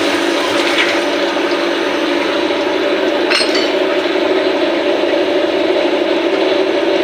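CNC lathe running with a steady machine hum while it machines a stainless steel camlock fitting, with one brief metallic clink about three seconds in.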